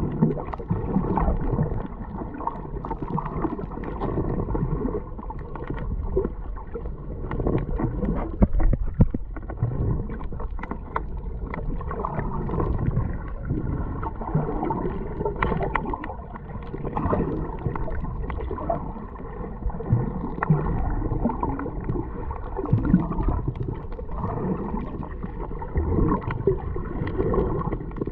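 Continuous muffled gurgling water noise, with most of its sound low and dull.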